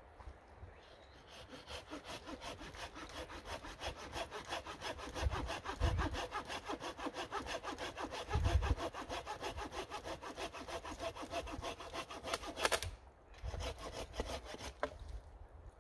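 Hand saw cutting through a length of wood with quick, even back-and-forth strokes. The sawing builds up over the first few seconds and stops abruptly about thirteen seconds in, then resumes briefly near the end.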